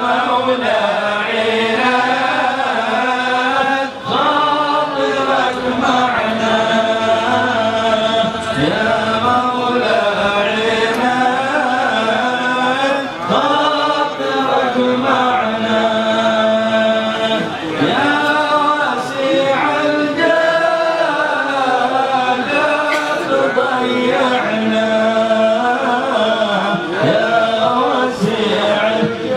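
A group of men chanting a devotional song together, unaccompanied, in a slow melody of long held notes.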